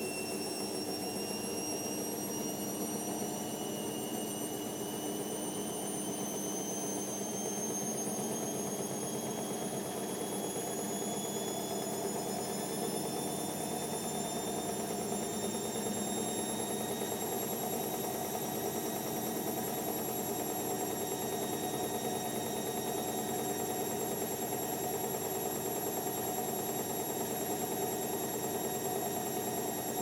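Indesit IWC6165 washing machine spinning: the drum motor's high whine rises slowly in pitch for about the first half, then holds steady once the drum is up to spin speed, over a steady rumble of the spinning drum.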